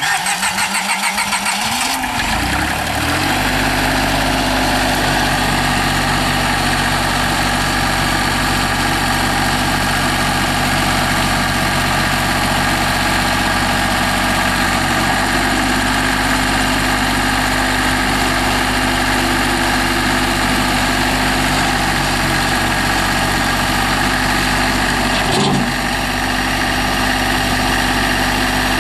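Massey Ferguson 1010 compact tractor's diesel engine cranking on the starter, catching about two seconds in and settling into a steady idle. Near the end the engine note dips briefly, then recovers.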